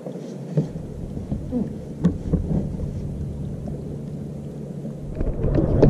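Wind buffeting the action camera's microphone: a deep, uneven rumble that sets in about half a second in and swells near the end, with a few light knocks and creaks from the kayak.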